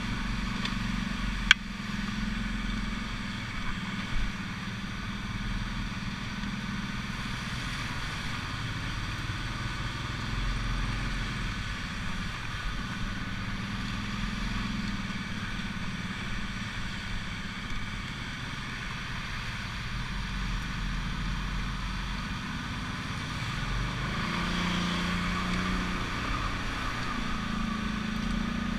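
ATV engine running steadily as it rides along a dirt trail, with a sharp click about a second and a half in.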